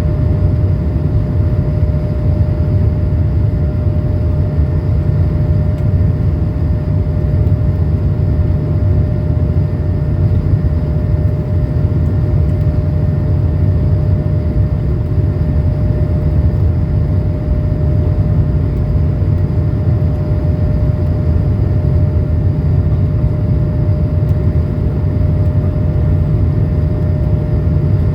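Cabin noise of an Airbus A220-300 in its climb after takeoff: a steady, loud rumble from its two Pratt & Whitney PW1524G geared turbofans and the airflow, with a steady humming tone running through it.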